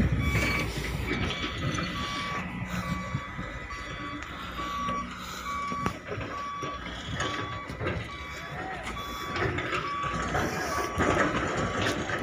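Reversing alarm on heavy construction machinery beeping steadily at one pitch, about once a second, over a low diesel engine rumble.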